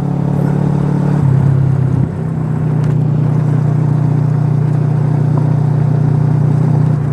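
Motorcycle engine running steadily at riding speed, with rushing wind and road noise. Its note shifts about a second in, then holds steady.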